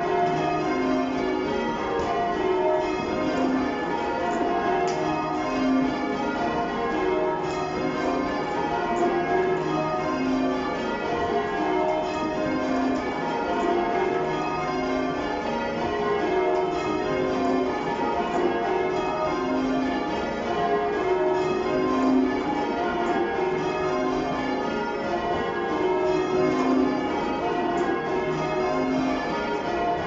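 Change ringing on Cheltenham Minster's ring of church bells, cast in 2017, with a 21 cwt tenor in E-flat. The bells strike one after another in a steady, even rhythm, their tones overlapping and ringing on.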